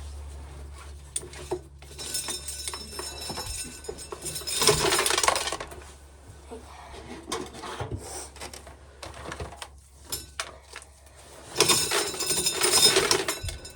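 Dry shelled corn kernels rattling and clinking against metal in two bursts, one about two seconds in and one near the end, with scattered clicks between.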